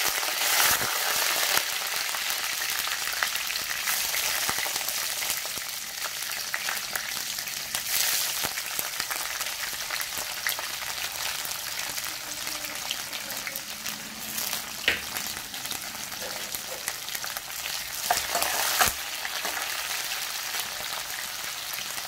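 Hot oil sizzling and spluttering in a steel kadhai as curry leaves and then chopped onion fry in a tempering of mustard seeds and bay leaves. The sizzle is loudest at the start and settles to a steadier fry, with a few louder flare-ups and one sharp click about fifteen seconds in.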